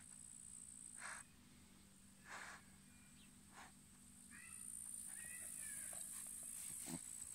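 Faint steady high trill of insects in the grass, with three short breathy snuffles from a dog sniffing with its nose pushed into a hole in the ground.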